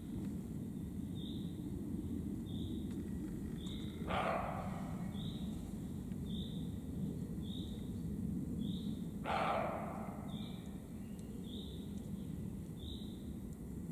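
Roe deer calling twice, about five seconds apart: each call cuts in suddenly and fades within about half a second. A faint high chirp repeats about once a second in the background.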